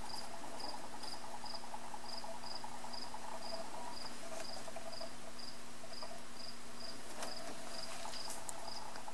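A cricket chirping steadily, about two to three short high chirps a second, over a faint steady hum.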